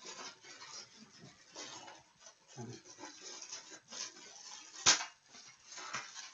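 Hands rustling and pulling at tightly wrapped parcel packaging, with a single sharp snap about five seconds in.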